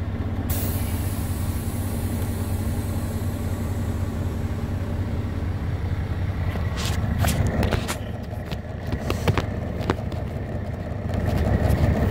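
Semi truck's diesel engine running steadily, heard from inside the cab, with a scatter of sharp clicks and rattles in the second half as the truck starts to move off.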